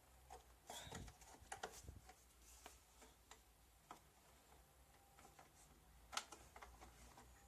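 Near silence broken by faint, scattered clicks and light knocks, the handling of parts while a refrigerator's cooling fan motor is being disconnected and taken apart.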